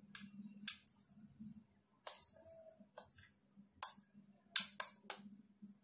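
Metal spoon scraping and tapping against a steel plate and bowl as chopped vegetables are pushed off into the bowl, with a few sharp clinks, most of them in the second half.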